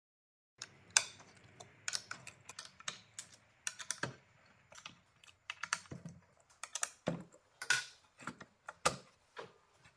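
Irregular light taps and clicks of hands handling and adjusting a wooden taper-cutting jig, starting about half a second in, a few per second.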